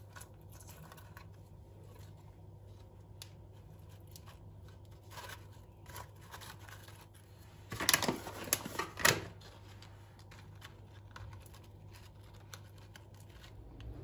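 Hands arranging food on a wooden serving board: soft rustles and small clicks, with a louder burst of crinkly scraping about eight seconds in, over a low steady hum.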